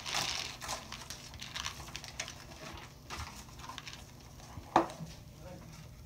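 Small plastic Lite-Brite pegs clicking and rattling as they are picked from a peg tray and pushed into the board, with one sharper knock a little under five seconds in.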